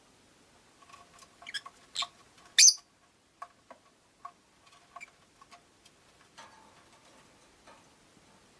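Rosy-faced lovebirds in a cage giving a few short, sharp chirps, the loudest about two and a half seconds in, amid scattered small clicks and taps.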